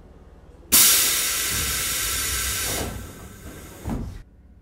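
Compressed air venting from a Tobu 8000 series train's pneumatic system while it stands at a platform: a sudden loud hiss starts under a second in, holds steady for about two seconds, then fades, with a brief second puff just before it cuts off.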